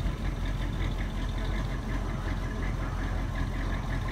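1962 Eureka hearse's Cadillac V8 idling steadily, with a fast, even ticking over the low rumble.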